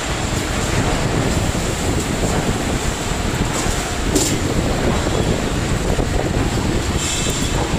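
A 2D CNC wire-bending machine running, feeding and bending steel wire: a steady mechanical noise with a constant high whine. A short sharp click comes about four seconds in, and a brief rattle near the end.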